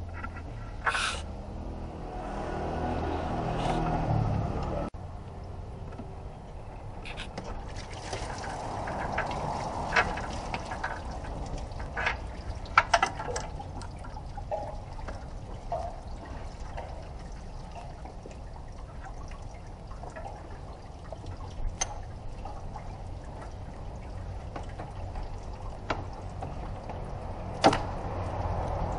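Scattered sharp clicks and knocks of hand work on a car radiator and its plastic fan shroud, over a steady watery hiss of running liquid. A louder low hum swells and then cuts off abruptly about five seconds in.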